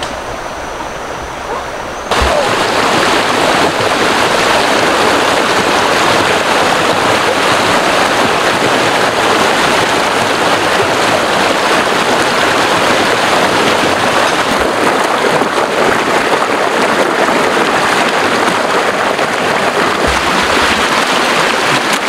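Shallow rocky stream rushing over rapids: a loud, steady rush of water that cuts in suddenly about two seconds in.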